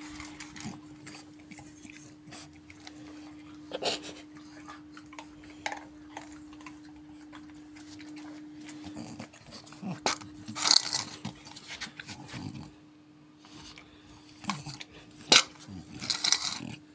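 French bulldog eating dry kibble from a metal bowl, its eating and breathing noises coming in short irregular bursts, the loudest about ten and sixteen seconds in. A faint steady hum stops about nine seconds in.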